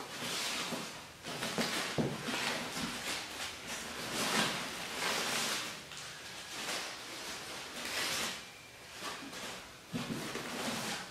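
Clear plastic wrapping and a cardboard box rustling and crinkling in irregular swishes as hands work a wrapped statue inside the box, with a soft bump about two seconds in and again near the end.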